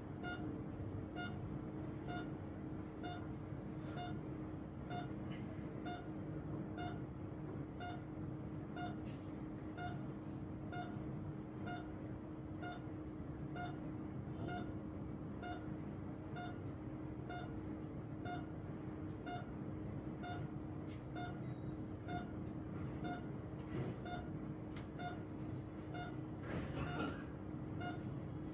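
Regular series of short electronic beeps, about one and a half per second, from the quantum resonance magnetic analyzer's scanning software while it reads a hand on the sensor, over a low steady hum.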